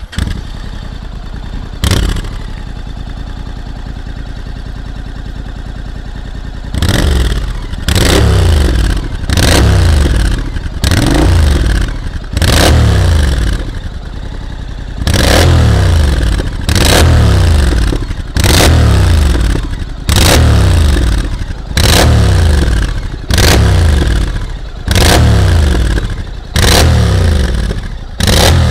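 Honda Integra's 670 cc parallel-twin engine breathing through a GPR Deeptone racing slip-on silencer with its dB killer fitted: it fires up, idles with one short blip, then from about seven seconds in is revved in a long run of short throttle blips about once every second and a half, each one dropping back to idle.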